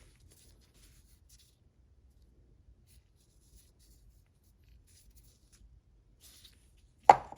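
Quiet handling noise: faint light ticks and a short rustle, then one sharp clack near the end as the tools are handled.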